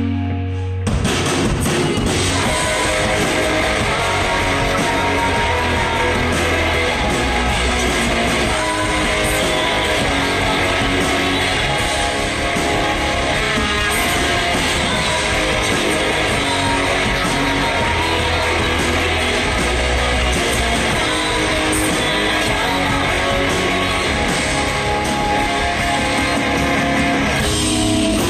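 Live rock band playing loud, led by electric guitar; the full band comes in about a second in.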